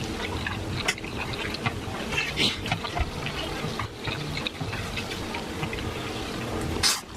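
Close, wet chewing and lip-smacking of someone eating rotisserie chicken, with many small clicks, a louder cluster about two and a half seconds in and a sharp smack near the end.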